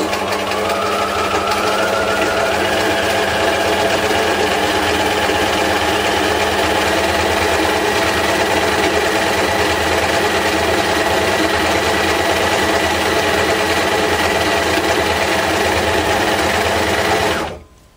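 Bernina electric sewing machine running steadily, stitching through layered paper. Its motor picks up speed over the first couple of seconds, then runs at an even speed and stops near the end.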